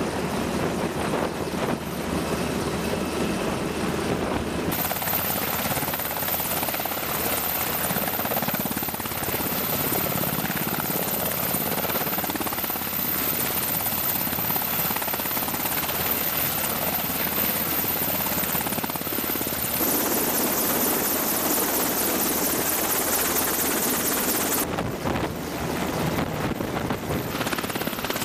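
UH-60 Black Hawk helicopter hovering low overhead, its rotor and twin General Electric T700 turboshaft engines making a loud, steady noise. The sound changes abruptly a few times: about five seconds in, around twenty seconds and near twenty-five seconds.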